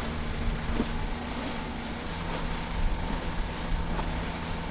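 Sailboat's inboard diesel engine running steadily at cruising RPM, a low drone under wind and water noise.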